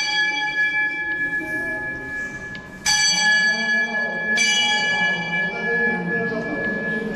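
Temple bell being rung: a bright metallic ring struck about three seconds in and again a second and a half later, each strike ringing on until the next.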